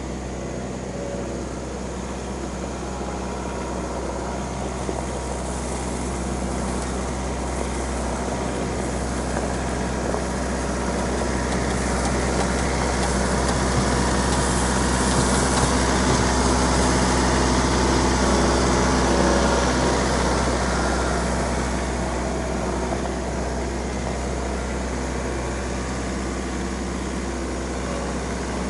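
Diesel engine of a red RK compact tractor with front loader running steadily as it drives. It gets louder as it comes close about halfway through, then fades as it pulls away.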